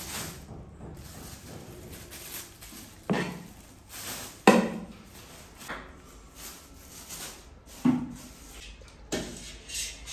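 Kitchen utensils knocking against pots and containers as cooked food is dished up for packing: scattered clatter with four sharper knocks, the loudest about four and a half seconds in.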